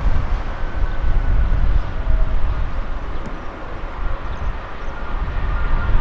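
Jet engines of a China Airlines Airbus A321 rolling out after landing: a steady, rumbling roar with a faint whine in it. Strong wind buffets the microphone with uneven low rumble.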